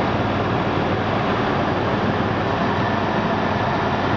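Jeep 4.0-litre straight-six engine idling steadily just after a cold start. The knock it develops once it warms a little cannot be heard yet.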